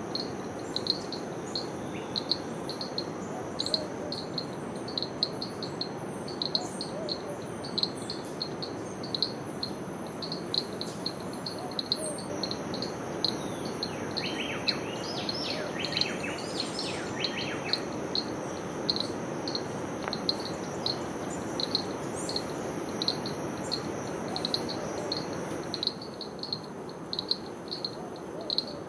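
Rushing water of a nearby river or waterfall, with an insect chirping steadily about twice a second in a high pitch. About halfway through a bird gives a quick run of notes.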